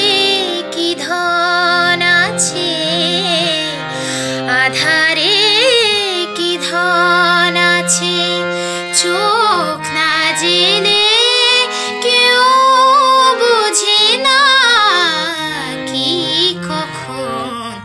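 A young woman singing a melody solo, with long held notes that waver and ornamented slides between pitches.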